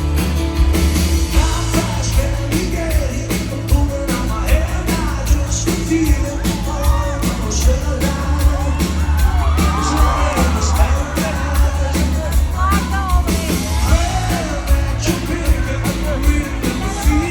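Live band music played loud over a venue PA, with a steady bass-and-drum beat and singing over it.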